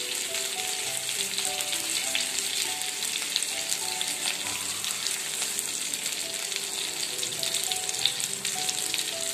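Stuffed small brinjals frying in oil in a kadhai on a low flame: a steady sizzle with small crackles. A soft background melody of held notes plays underneath.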